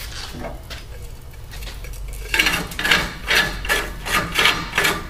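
Chrome discharge fitting being screwed by hand onto a fire pump's threaded brass discharge outlet, with metal threads scraping. Light handling noise at first, then from about halfway a run of rasping turns, about two or three a second.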